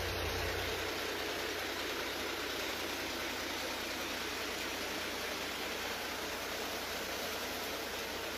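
Fast-flowing floodwater rushing through a street, a steady, even rush.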